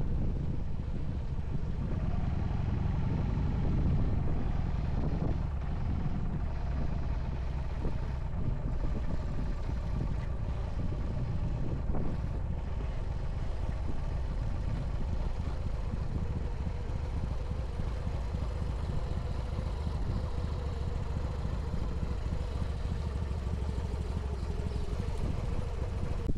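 Motorcycle engine running steadily at low speed as the bike rolls slowly, heard from the rider's position.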